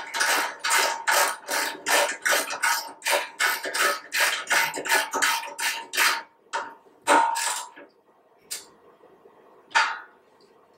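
Ratchet wrench with a 13 mm socket tightening hex bolts into a metal frame: a quick run of ratcheting strokes, about three to four a second, that stops about six seconds in. A few separate metal clacks follow near the end.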